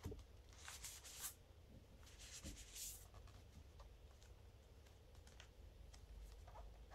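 Faint handling of paper: card booklets sliding and rustling against each other and the table in two short scrapes, followed by a few light taps and clicks as a metal SteelBook case is picked up and turned in the hands.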